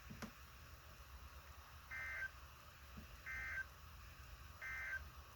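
Three short warbling data bursts of an Emergency Alert System end-of-message (EOM) signal over weather radio, each about a third of a second long and a bit over a second apart. They mark the end of the alert message.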